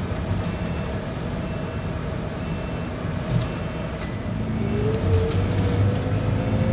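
Scania K94UB bus's 9-litre six-cylinder DC9 diesel heard from inside the cabin, rumbling low, then a whine rising steadily in pitch from about four and a half seconds in as the bus accelerates away. A faint high beep repeats about once a second.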